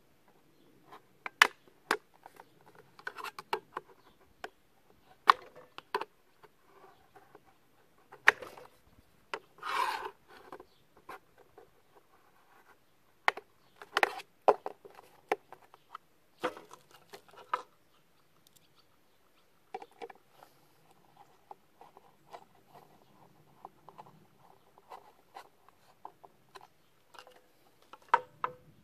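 Irregular sharp clicks, taps and short scrapes of a small screwdriver and plastic casing parts as a bread maker's lid is refitted, with a longer rasping scrape about ten seconds in.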